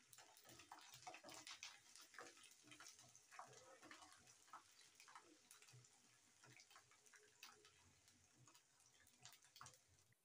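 Peeled garlic cloves frying in hot oil in a nonstick kadai, faintly sizzling with irregular small crackles and pops while a spatula stirs them.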